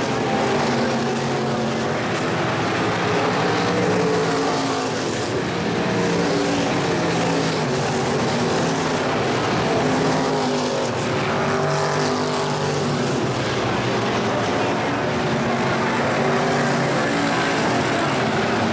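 Several IMCA stock cars racing, their V8 engines revving up and down through the turns, with several engine notes overlapping.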